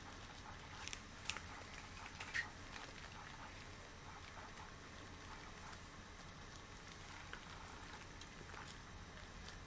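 Latex gloves rustling and crackling faintly, with a few sharp crinkles, the loudest about two and a half seconds in.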